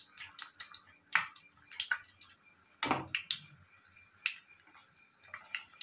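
Samosas deep-frying in hot oil in a kadai: scattered crackles and pops over a soft sizzle, with one louder knock about three seconds in as another samosa goes into the pan.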